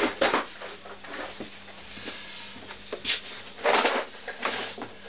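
Irregular clatter and clinking of tools being rummaged through, with a louder burst of rattling about two-thirds of the way in.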